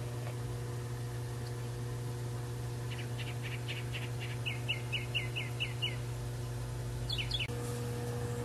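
A songbird singing a quick run of about a dozen short high notes, the second half of them slurring downward, followed a little later by a couple of quick chirps, over a steady low hum.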